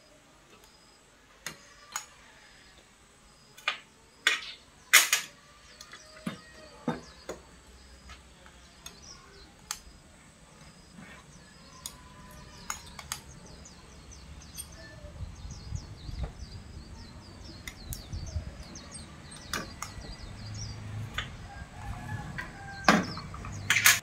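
Irregular sharp clicks and knocks from soldering-gun work on a circuit board, with a few louder knocks near the end as the gun is put down. Faint bird chirps in the background, and a low rumble building in the last third.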